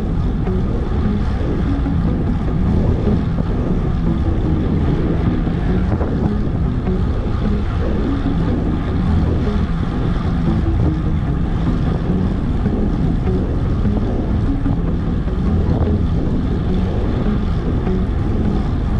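Wind rushing over the microphone of a handlebar-mounted camera on a road bike at riding speed: a loud, steady low rumble with no breaks.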